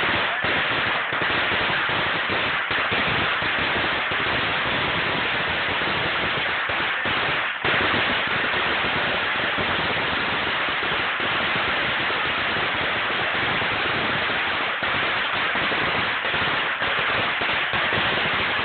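A huge string of firecrackers going off in a continuous, dense, rapid crackle of bangs, with a brief dip about seven and a half seconds in.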